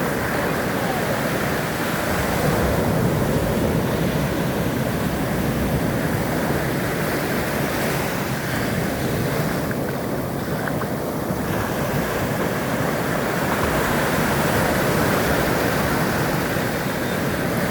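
Ocean waves and surf washing continuously, a steady rush that swells and eases gently.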